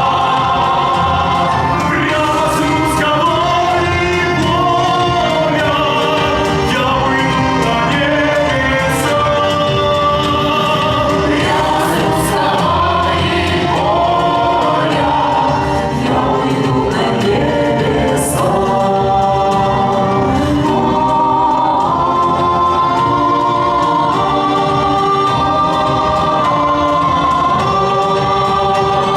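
Cossack ensemble choir singing a song in several voice parts, steady and loud throughout.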